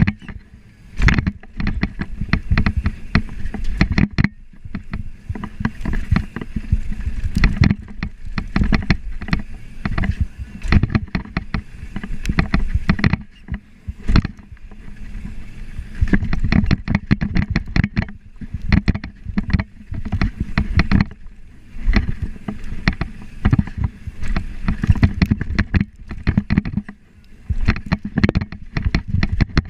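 Downhill mountain bike ridden fast over a rough dirt trail: continuous rattling and knocking of the bike and its tyres over the ground, with a low rumble, easing off briefly a few times.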